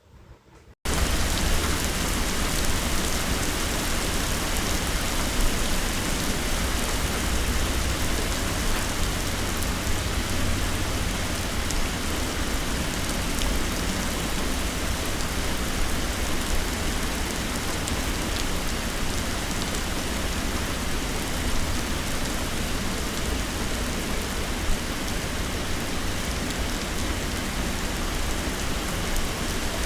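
Heavy rain pouring down in a steady, dense hiss with a deep low rumble, starting suddenly about a second in.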